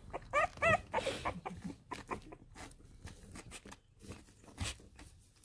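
French bulldog puppy giving a few short, high whimpers in the first second, followed by soft scattered clicks and rustling.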